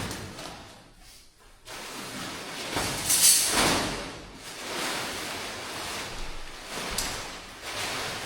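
Wind rushing over the microphone in uneven gusts, loudest about three seconds in.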